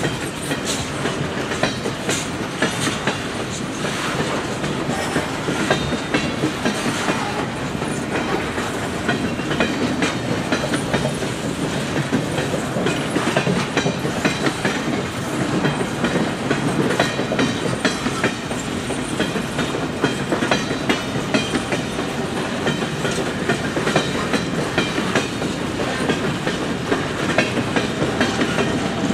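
Freight train of open-top coal cars rolling steadily past: a continuous rumble of steel wheels on rail with rapid, irregular clicks and clacks from the passing wheel sets.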